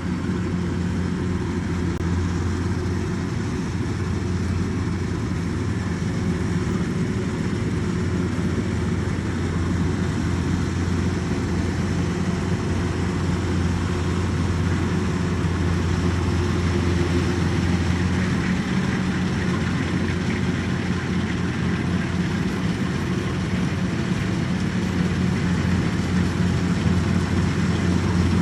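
Combine harvester running steadily during rice harvesting: a constant deep engine hum with a mechanical clatter of noise over it, holding one speed.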